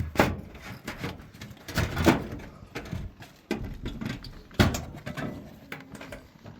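Irregular knocks and scuffs from handling a screw, a cordless drill and a piece of corner trim, with no drill running. The loudest knock comes about two seconds in.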